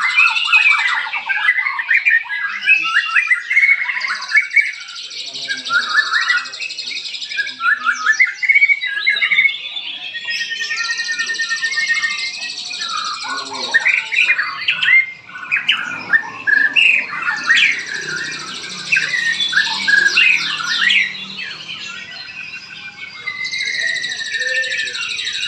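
Many caged songbirds singing at once, a dense overlapping chorus of chirps, trills and squawks, with stretches of steady high buzzing that come and go.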